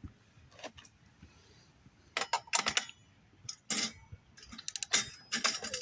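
Socket wrench clicking and clattering while a new spark plug is tightened into a Briggs & Stratton push-mower engine. The clicks come in short clusters from about two seconds in.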